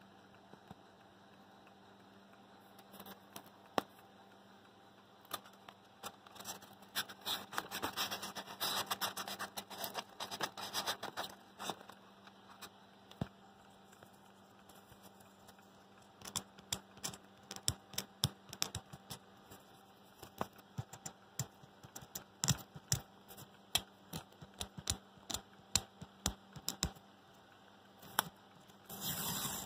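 Scratching, rubbing and scattered irregular clicks from a handheld phone camera being handled and moved close to foam insulation, with a dense stretch of scraping about seven seconds in. A faint steady hum runs beneath.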